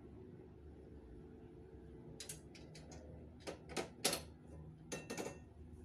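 A scatter of light clinks and knocks, like dishware and utensils being handled, starting about two seconds in and loudest around four and five seconds, over a low steady hum.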